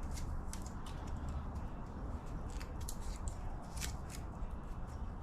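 Sticky tire-repair plug strings being pulled and peeled apart by hand: irregular small clicks and crackles over a steady low rumble. The strings are stuck together as if they had melted.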